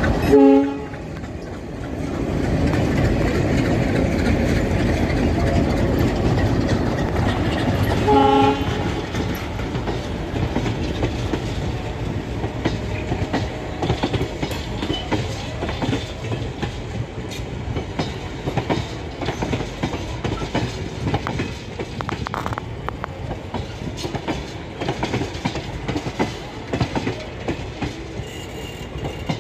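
Diesel train on the move: a short horn blast right at the start and another about eight seconds in, over the engine's rumble, then the wheels clicking over rail joints.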